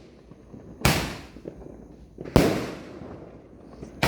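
Fireworks going off in the neighbourhood: two sharp bangs about a second and a half apart, each dying away over about a second, and a third bang right at the end.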